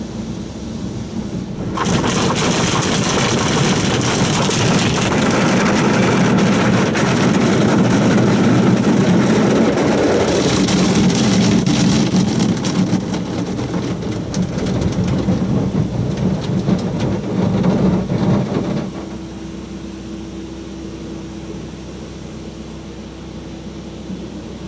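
Soft-touch car wash's cloth brushes and water spray scrubbing and slapping over the car, heard from inside the cabin. The noise starts suddenly about two seconds in and cuts off suddenly near the end, leaving a lower steady hum.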